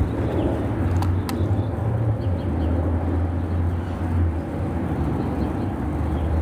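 Steady low outdoor rumble with two faint clicks about a second in.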